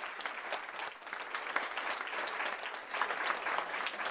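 Audience applauding: many people clapping their hands together in a dense, steady patter.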